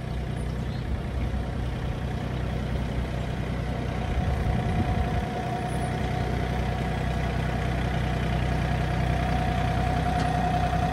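Truck engine running steadily at low speed, with a steady high whine that starts about a second in.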